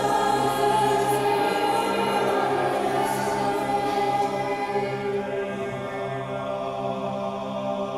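Mixed-voice school choir singing long held chords, growing softer in the second half.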